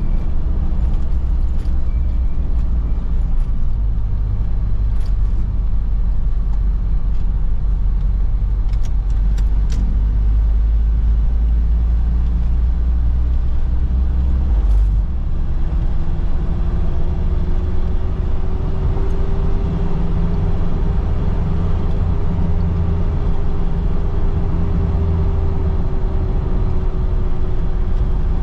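Steady low rumble of a road vehicle under way, with a faint engine hum whose pitch sinks in the first half and climbs again later as the speed changes.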